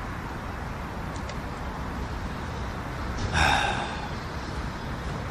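Steady background hum of distant city traffic across the river, with one short breathy puff about three and a half seconds in.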